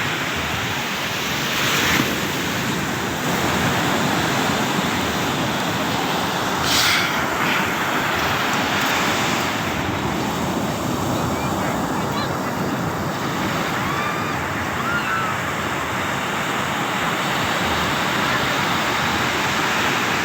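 Heavy surf breaking on a sandy beach at high tide: a steady rush of waves that swells louder briefly twice in the first few seconds.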